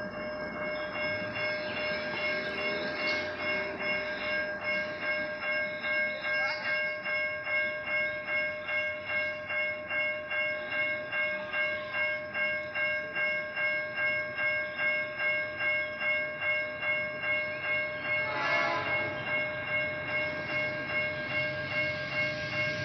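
Level-crossing warning alarm sounding: a steady electronic tone pulsing about two and a half times a second, signalling that a train is approaching.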